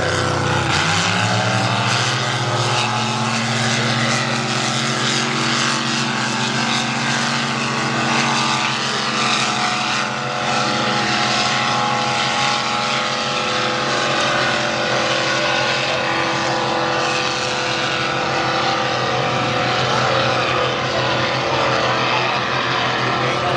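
Two high-powered racing boats' engines running flat out side by side. The engine note shifts as the nearer boat passes close, then holds as a steady drone as the boats run on.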